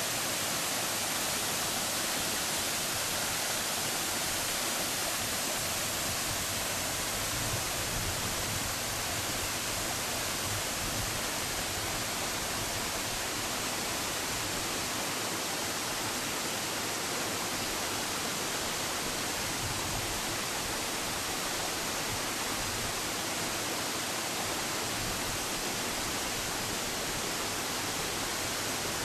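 Waterfall pouring down a rock face into a rocky stream: a steady rush of falling water.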